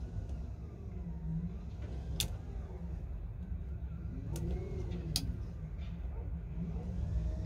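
Converted cabin cruiser motoring slowly on its 72-volt Lynch DC electric motor: a low steady rumble of the drive and the water, with three sharp clicks partway through.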